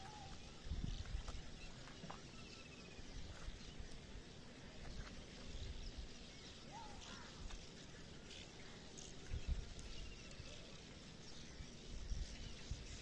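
Outdoor rural ambience: faint short bird chirps and a brief animal call over a steady background hiss, with a few low bumps about a second in and near the end.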